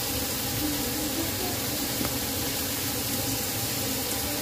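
Soup boiling hard in an aluminium stockpot, a steady bubbling hiss.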